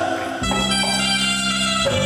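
Devotional kirtan music: after a short pause in the singing, an instrument holds one steady note with rich overtones for about a second and a half.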